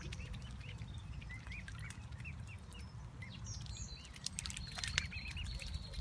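Mute swan cygnets peeping: a running string of short, high, arched calls, with a few sharp clicks.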